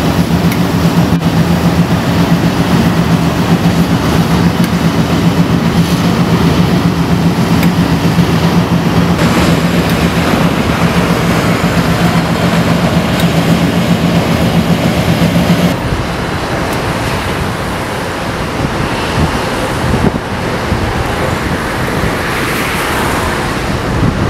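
Two KiwiRail DH class diesel shunting locomotives (GE U10B type) running close by at low speed, a steady engine drone. About 16 seconds in it changes abruptly to a quieter, wind-blown sound with the engines distant.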